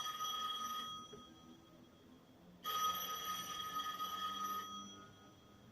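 Telephone ringing: one ring ends about a second in, and a second ring of about two seconds follows after a pause of under two seconds.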